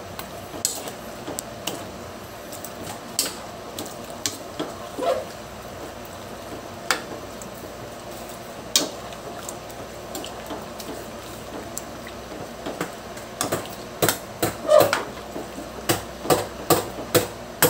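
Metal spatula clinking and scraping against a metal wok while stirring pieces of chicken and pork in adobo sauce, over a steady low hiss. The clinks come scattered at first and thicker near the end.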